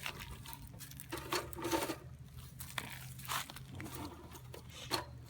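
Scattered rustling and a few light knocks, the loudest cluster about a second in and a sharp knock near the end, over a faint steady low hum.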